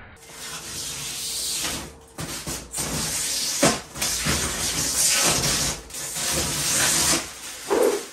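Rustling and scraping of a plexiglass panel being handled and fitted into a metal cabinet frame, with a sharp knock about three and a half seconds in.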